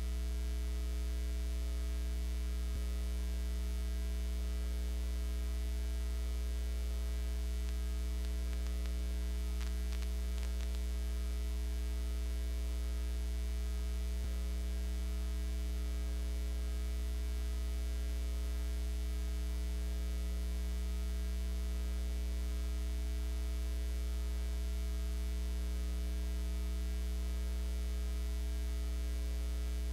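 Steady electrical mains hum: a low, unchanging buzz with several fainter tones stacked above it, and a few faint clicks about ten seconds in.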